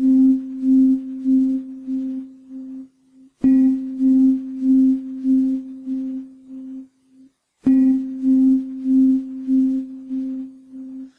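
A ringing, bell-like tone played back over loudspeakers as a sound example, struck three times about four seconds apart. Each strike rings for about three seconds with a regular wavering pulse, roughly two pulses a second, fading away before the next one.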